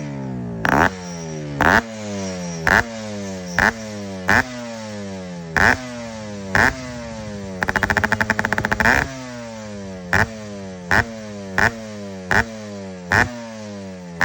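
A motorcycle-type engine blipped again and again, about once a second, each blip a sharp burst that falls back in pitch. A quick rattling burst comes about eight seconds in.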